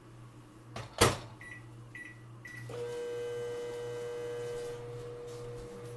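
Microwave oven: the door shuts with a loud clack, three short keypad beeps follow, then the oven starts running with a steady hum as it heats butter to melt it.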